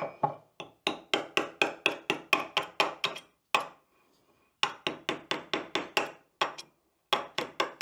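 A container of wood hardener being shaken to mix it, making rapid rhythmic clacking: about six knocks a second, in runs of a second or so with short breaks between them.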